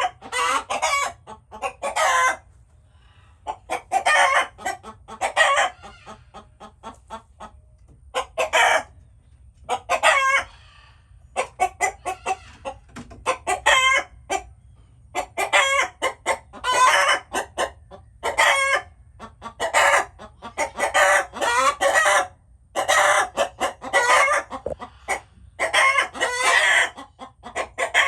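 Chickens clucking and calling over and over, in bouts of several calls every second or two with brief pauses between them.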